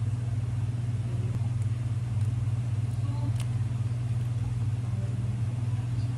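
Steady low hum of running machinery, with a few faint light clicks from utensils.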